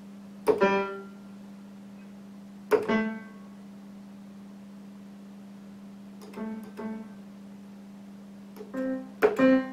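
Piano-sounding keyboard notes played one or two at a time, with long irregular gaps between them: one near the start, one a few seconds in, two close together past the middle and a quick cluster near the end. Each note rings out briefly over a steady low hum.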